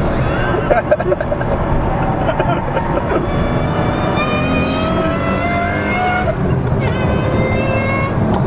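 Vehicle engine accelerating, heard from inside the cabin over road rumble, with a whine that climbs slowly in pitch, drops about six seconds in, then climbs again.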